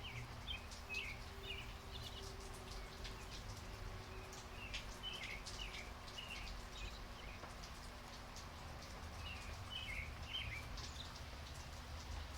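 Light rain falling, with scattered drops ticking and pattering. A small bird chirps in several short bouts over the rain.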